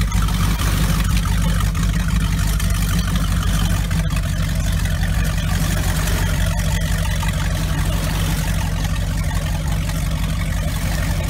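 Motorboat engine idling steadily, a constant low engine note.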